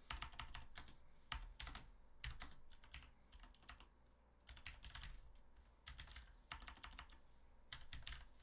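Faint computer keyboard typing, in short runs of keystrokes with brief pauses between.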